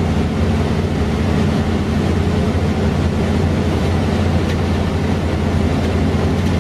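Cabin noise of a 1989 Mercedes-Benz O407 bus under way: its rear-mounted six-cylinder diesel running steadily, with road and body noise.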